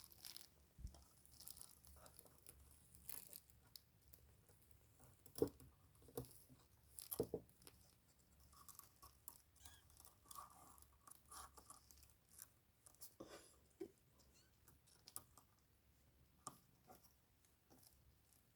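Faint, irregular small clicks and crunching sounds, with a few louder knocks about a third of the way in.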